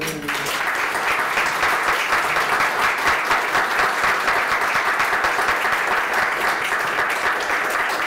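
Audience applauding: steady clapping of many hands that tapers off near the end.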